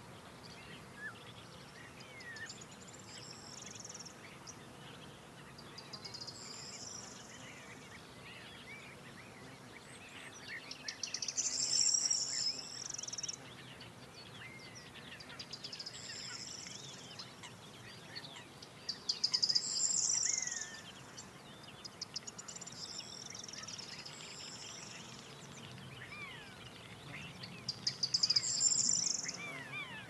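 Songbirds singing in the evening field. One bird repeats a short, high trilled phrase every few seconds, over fainter chirps from other birds.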